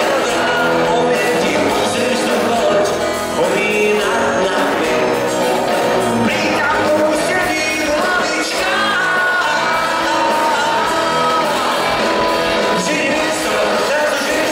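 Live pop-rock band playing loudly, a male lead singer singing over electric guitars, drums and keyboards, heard from the audience in a large arena hall.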